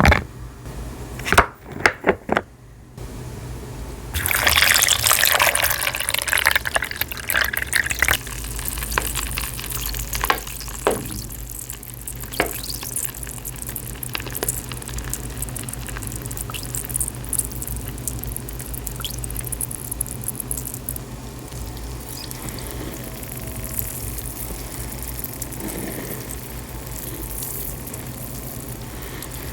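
A few sharp clicks in the first seconds, then water poured over an assortment of dry, crumbly pieces from about four seconds in for several seconds. After that comes a steady fine fizzing crackle as the pieces soak.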